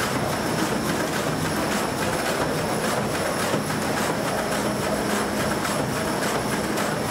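A 1923 Gebr. Stork & Co. steam engine at a pumping station running steadily: an even rhythm of mechanical knocks from its piston rod and valve gear, over a continuous hiss and a low hum.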